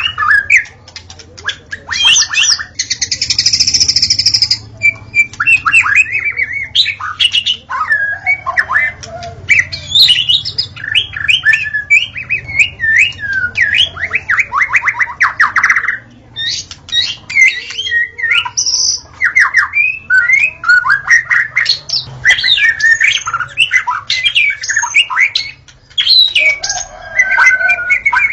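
White-rumped shama (murai batu) singing a continuous, varied song of whistled notes, swoops and fast rattling trills.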